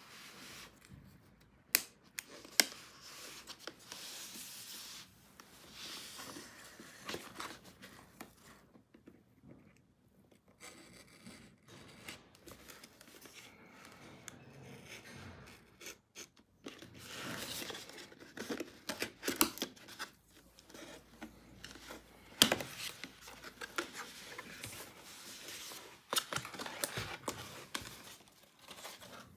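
Small box cutter slitting a cardboard packaging sleeve, with stretches of scraping and rubbing as the card is cut and pulled away from a plastic toy carrier. Several sharp clicks come in between, the loudest a few seconds in and again past the middle.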